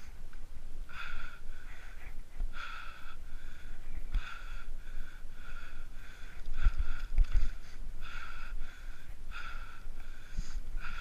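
Bicycle riding along a paved path: low wind rumble and bumps, with a short high squeak-like sound repeating about twice a second.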